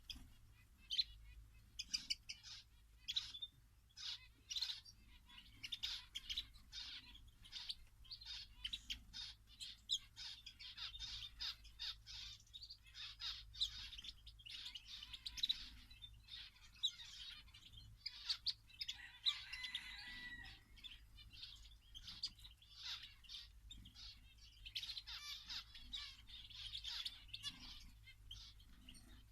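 A flock of small aviary finches chirping and twittering, with short calls overlapping almost without a break. The flock is a mix of goldfinches, greenfinches, linnets, canaries and zebra finches.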